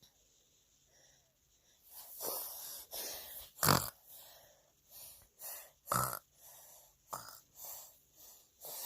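A young child making pig-like snorting grunts: a string of about a dozen short, breathy snorts starting about two seconds in, the loudest one near the middle.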